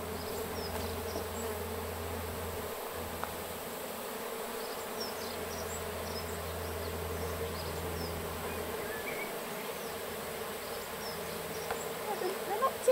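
Steady buzzing of a mass of honey bees, thousands of them swarming over comb and being scooped by hand into a wooden hive box.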